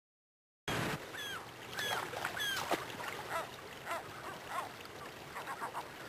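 Gulls calling again and again, short cries that bend and fall in pitch, over the steady rush of a shallow river. The sound starts suddenly a little under a second in.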